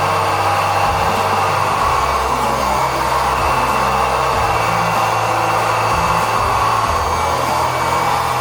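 Hydraulic pump of a radio-controlled model excavator whirring steadily, its low note shifting a few times as the hydraulics are worked.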